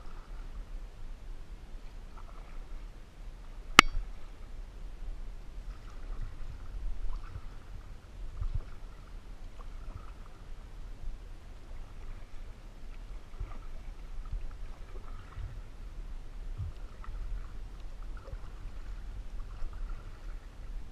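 Canoe paddle strokes in lake water: soft swishes and drips repeating every second or two. One sharp knock sounds about four seconds in.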